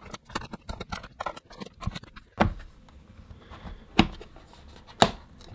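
Plastic housing of a Groov-e Bluetooth soundbar being handled and worked apart, with a run of light clicks and taps, then three sharper clicks spaced about a second or more apart in the second half.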